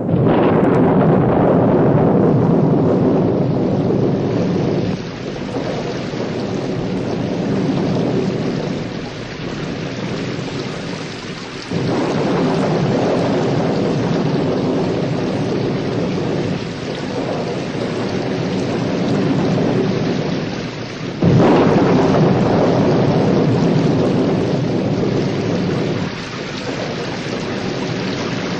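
Heavy rain falling steadily under rolling thunder. Sharp thunderclaps break in at the start, about twelve seconds in and about twenty-one seconds in, each rumbling on and slowly fading.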